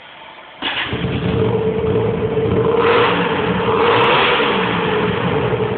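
A 2007 Hyosung GT125R's 125 cc V-twin running with no exhaust fitted, so the bare exhaust ports sound loud and raw. The engine noise comes in abruptly about half a second in and stays loud, with a brighter, harsher swell in the middle.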